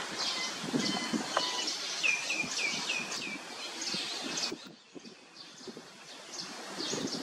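Birds chirping, with a quick run of about five falling notes a couple of seconds in, over rustling leaves and branches. The whole sound drops sharply about halfway through, then the chirps and rustling return more faintly.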